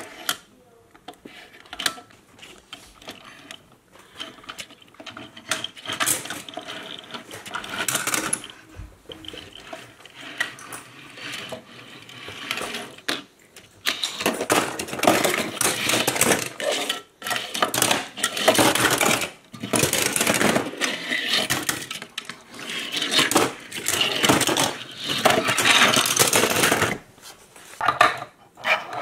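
Die-cast metal toy cars clinking and clattering against each other and the tabletop as they are handled and shuffled around, sparse at first and busier and louder from about halfway through.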